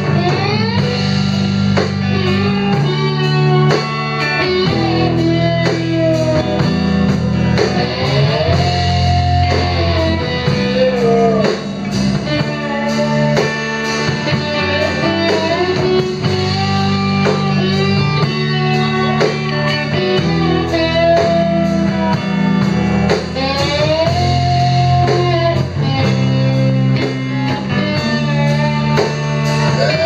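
Live band playing: electric guitar over bass guitar and a drum kit, with notes gliding up and down above a steady, heavy bass line.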